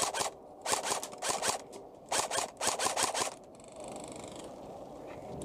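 Quick footsteps crunching on dry, gritty ground, about three to four steps a second, stopping about three seconds in. A short hiss follows.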